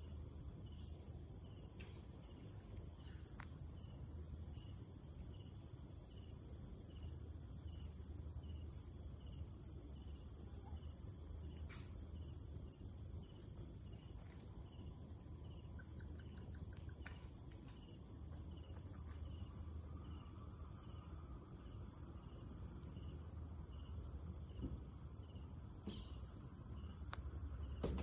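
Night-time crickets trilling, a high continuous trill with a fainter chirp repeating at an even pace, over a faint low hum.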